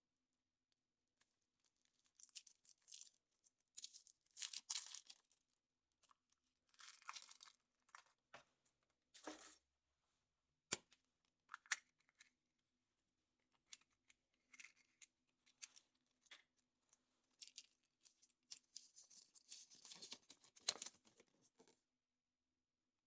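Foil wrapper of a chocolate surprise egg being torn and crinkled off in several short bouts, with two sharp clicks about halfway through.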